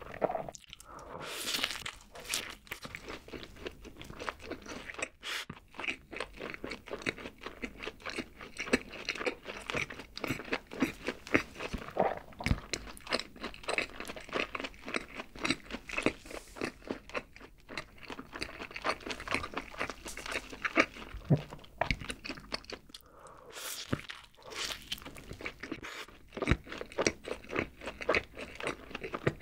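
Close-miked chewing and biting of a cheeseburger: soft bun and patty, with many uneven wet smacks and crunches. A burger dipped in cheese sauce is bitten and chewed partway through.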